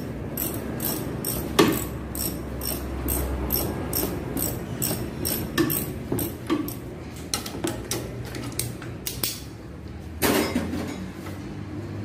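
Ratchet wrench clicking as its handle is swung back and forth, undoing the nut on a front stabilizer-bar link of a VW Gol G5. The clicks come about three a second at first, then become sparser and irregular. A louder metallic clank comes about ten seconds in.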